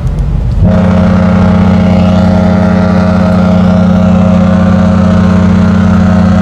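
The Genting Dream cruise ship's horn sounding one long, steady blast. It starts about two-thirds of a second in, over a low rumble.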